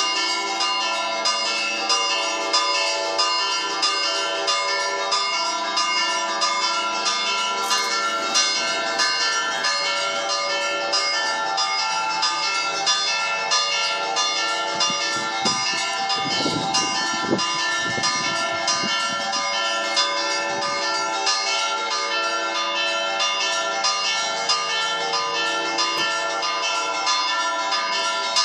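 Festive peal (scampanio) of four church bells tuned E, G, B and D-flat, swung by motor at half-swing, their clappers striking over and over in a continuous overlapping clangour.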